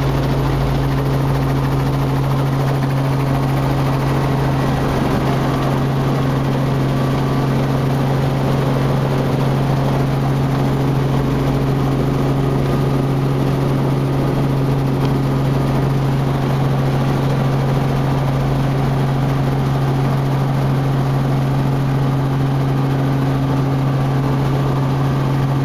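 Robinson R44 helicopter's six-cylinder Lycoming piston engine and rotors running, heard from inside the cabin: a loud, steady drone with a low hum that does not change.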